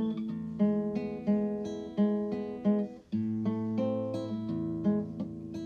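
Background music: an acoustic guitar picking a steady tune, with a brief break about three seconds in.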